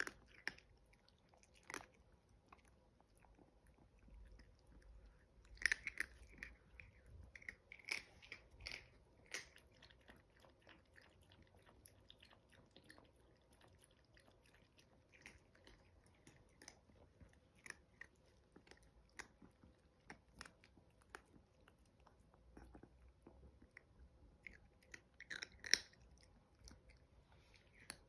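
Chihuahua puppies crunching dry kibble: faint scattered bites, with louder clusters of crunches about six to nine seconds in and again near the end.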